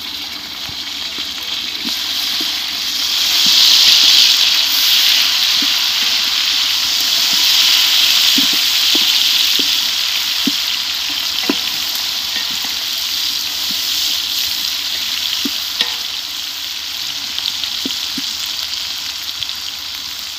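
Chopped tomatoes sizzling in hot ghee with browned onions in a large metal cooking pot; the sizzle swells a few seconds in and eases toward the end. Scattered small clicks come as a wooden spatula stirs the masala against the pot.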